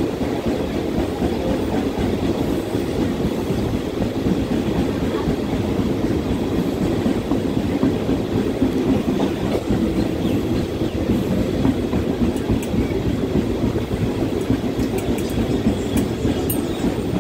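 Mumbai suburban electric local train running at speed, heard from on board: a steady rumble of wheels on the rails, with a few light clicks near the end.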